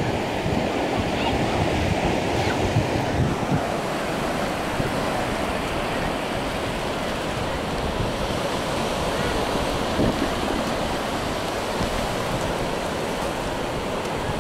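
Steady rush of surf breaking and washing on a beach, with some wind buffeting the microphone.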